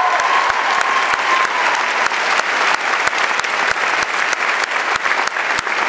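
Many people applauding steadily, a dense patter of hand claps from the choir and audience.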